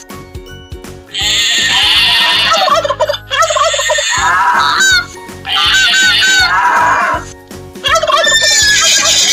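A farm bird calling in several bursts of rapid, rippling calls, each about one to two seconds long, with light background music underneath.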